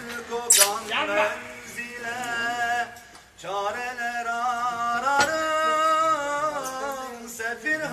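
Men singing an unaccompanied Turkish Sufi hymn (ilahi), a lead male voice in long wavering held notes, with a short breath pause about three seconds in.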